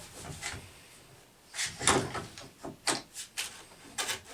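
A few knocks and scraping rattles of wood and a tool being handled and positioned on a workbench, with no saw motor running.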